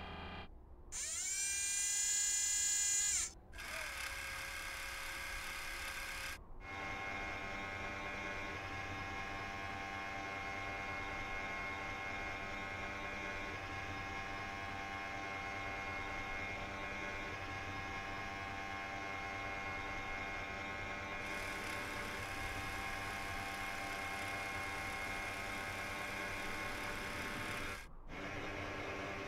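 Electric motor whine of the animated Curiosity rover's robotic arm. A loud whine rises in pitch about a second in and cuts off about two seconds later, then gives way to a steadier whir and a hum of several steady tones, with a brief break near the end.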